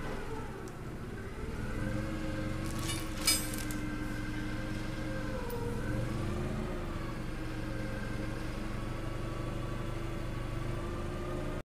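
Rollback truck's Cummins L10 diesel running steadily, its pitch dipping and rising slightly as the load changes. One sharp metallic clank comes about three seconds in.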